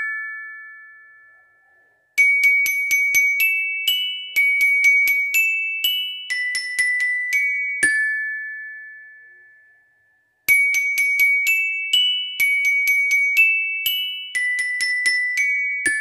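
Bell lyre's metal bars struck with a mallet, playing chords as quick runs of repeated ringing notes. Twice the playing stops and one note rings on and fades to silence, at the start and again about halfway through, before the striking resumes.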